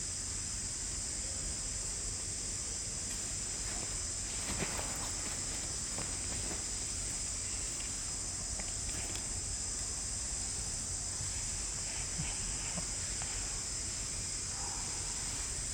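Steady high-pitched insect chorus droning without a break, with a few light rustles and clicks about four to six seconds in.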